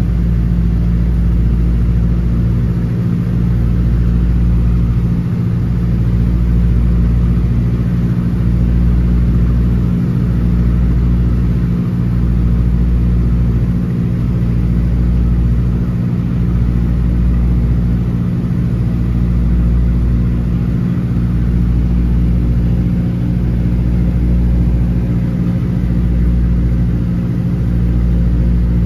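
The Ford Tri-Motor 5-AT-B's Pratt & Whitney Wasp nine-cylinder radial engines drone steadily at cruise power, heard from inside the cabin. The drone has a slow throb about every two seconds.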